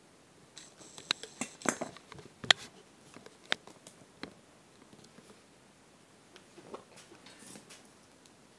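Handling noise: a run of sharp clicks and small knocks, the loudest about two and a half seconds in, then soft rustling and scuffing near the end as hands touch the handbag.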